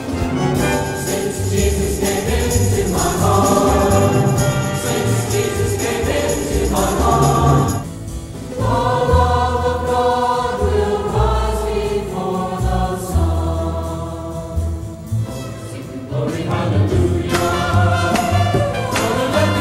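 Choral music: a choir singing with instrumental accompaniment, a steady bass line and rhythmic jingling percussion, with a brief drop in level about eight seconds in.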